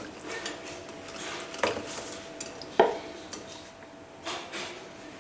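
Kitchen utensils clinking and scraping against a mixing bowl, with a few sharp knocks; the loudest comes about three seconds in and rings briefly.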